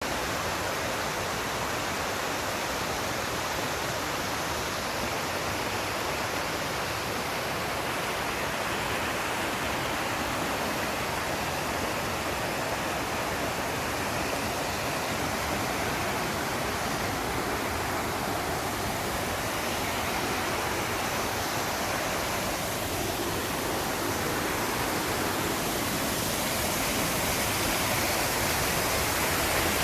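Waterfall: a steady rush of falling water, getting a little louder near the end.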